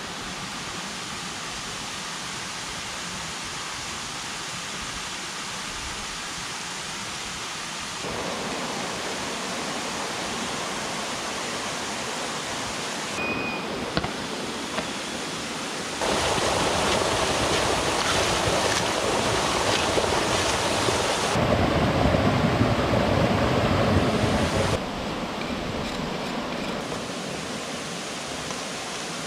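Steady rushing of a flowing river, its loudness and tone jumping up and down between shots, loudest for several seconds in the middle. A couple of faint clicks partway through.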